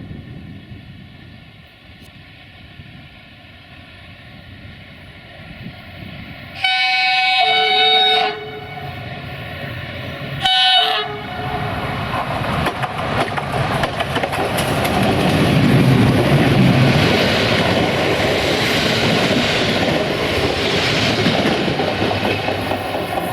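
Regional passenger train sounding its horn, a long blast about seven seconds in and a short one a few seconds later. Then the train runs past with wheels clacking over the rail joints, the rumble growing louder.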